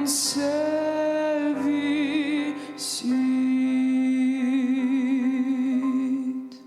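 Slow hymn music at its close: long held sung notes with vibrato, dying away near the end.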